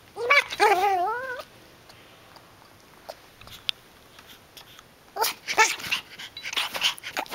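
Yorkshire terrier puppy giving a high, wavering whine about a second long near the start, then a quick run of short, sharp sounds towards the end.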